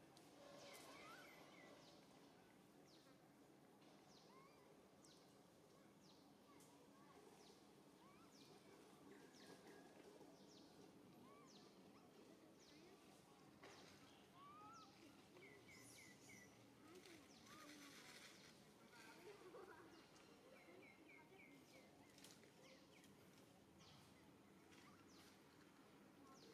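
Faint forest ambience with small birds chirping and trilling now and then.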